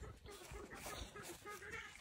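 Chickens clucking faintly, a few short wavering calls.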